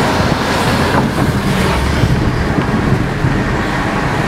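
Steady road noise heard from inside a moving car: a low rumble of tyres and engine with a little wind noise over it.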